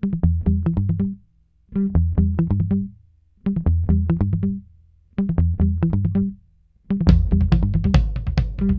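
Bass-heavy music played loud over a large carnival sound system: a short riff plays four times, each time broken off by a brief silence, then the full beat comes in about seven seconds in and keeps going.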